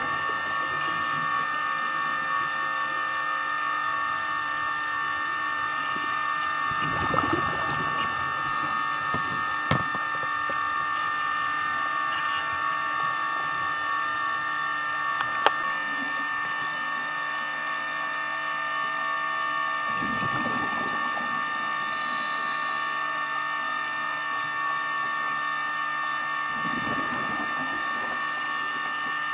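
Steady electrical whine of a camcorder sealed in an underwater housing, heard through the water. Three times, about seven, twenty and twenty-seven seconds in, a scuba diver's regulator exhalation bubbles up in a short rush, and there are a couple of faint clicks.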